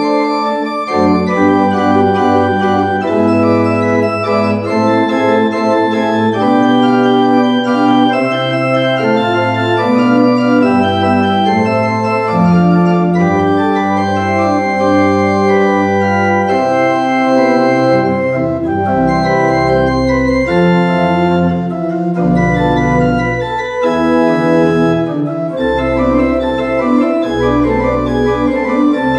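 Church pipe organ playing slow, sustained chords, with deep pedal notes joining about two-thirds of the way through.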